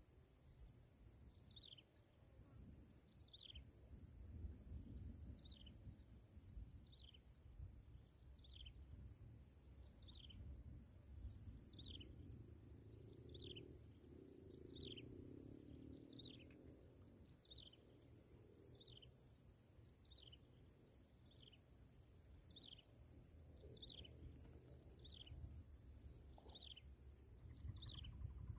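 A bird calling faintly and repeatedly, a short falling whistle about once a second, over a low rumble and a steady high hiss.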